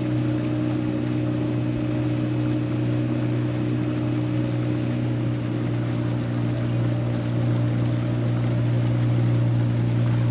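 Boat motor running at a constant speed, a steady low drone with no change in pitch.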